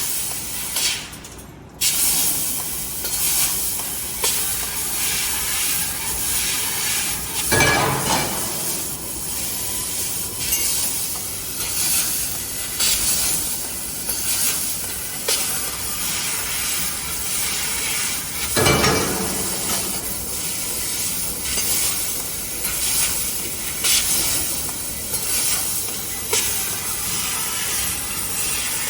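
Fiber laser tube-cutting machine (A16C, 3000 W Raycus source) cutting, a steady hiss of assist gas at the cutting head, with light metallic clinks and two louder bursts of machine noise, about a quarter and two thirds of the way in.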